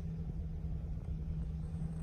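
Vehicle engine idling while stopped, a steady low hum with one constant tone, heard inside the cabin.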